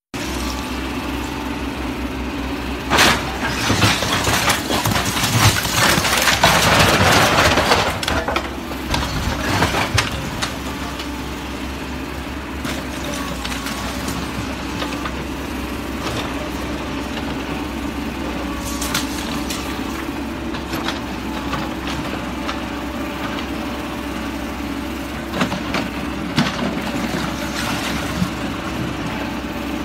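Caterpillar backhoe loader's diesel engine running steadily while its backhoe bucket knocks down a brick wall. Bricks and rubble crash and clatter loudest from about 3 to 8 seconds in, with smaller crashes later.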